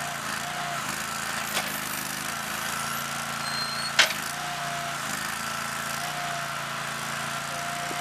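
Boxer 530 mini loader's engine running steadily while its backhoe attachment digs, with a higher whine coming and going several times. A small knock sounds about a second and a half in, and a sharp, louder knock about four seconds in.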